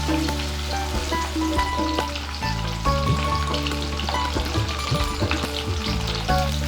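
Food frying in hot oil in a pan, a steady sizzle with small crackles throughout, under background music.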